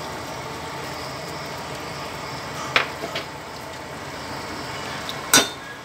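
Steady hiss of a gas stove burner under a steel pot of simmering soup, with two light knocks about three seconds in and a sharp clank near the end.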